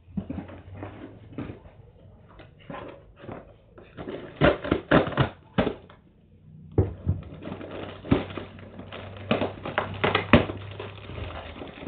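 A cardboard shipping box being handled and pulled open by hand: repeated crackling and scraping of cardboard, with a short lull about six seconds in.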